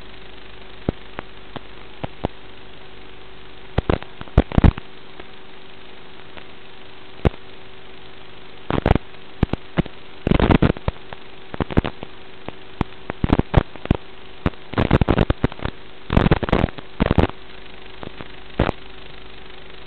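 Steady hiss and faint hum of an analog FPV video link's audio, broken by crackles and pops as the signal breaks up. The crackles are scattered at first and come in dense clusters from about nine seconds in.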